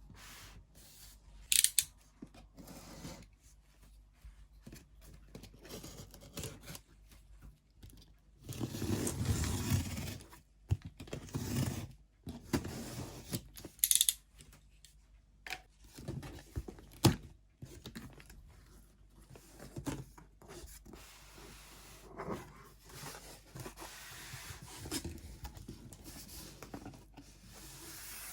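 Packaging being cut and torn open by hand, with scraping and rustling of the box and wrapping and a few sharp clicks.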